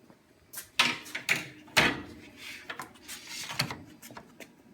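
Cassette-type work clamp being handled and slid into a programmable sewing machine: a series of sharp clunks and clicks, the loudest about a second in and just before two seconds.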